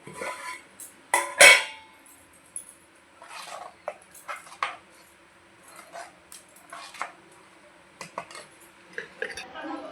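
Kitchen utensils knocking and clinking against metal cookware, a scatter of separate strikes with the loudest about one and a half seconds in.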